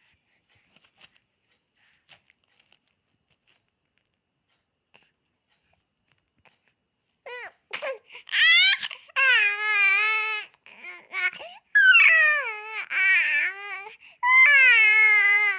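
Almost silent with a few faint clicks for about seven seconds, then a baby starts crying in a run of loud, high, wavering wails of about a second each.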